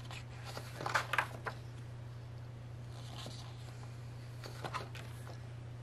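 Paper pages being turned and handled: a few short rustles, a cluster about a second in and more at three and nearly five seconds, over a steady low hum.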